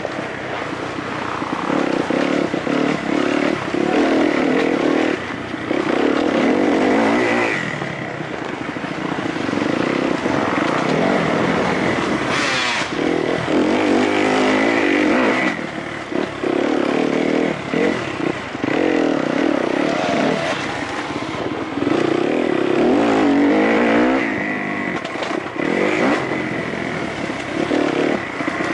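Kawasaki KX-F four-stroke single-cylinder motocross bike engine heard from on board while riding, its revs swelling and easing every second or two as the throttle is opened and closed over rough ground.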